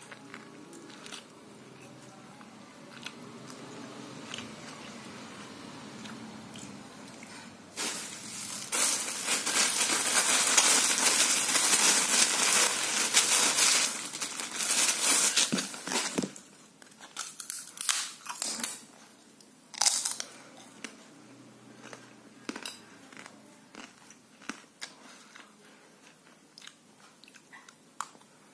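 Clear plastic bag crinkling loudly for several seconds as a packaged cracker is unwrapped, followed by scattered sharp crackles. Quieter eating and chewing sounds come before and after.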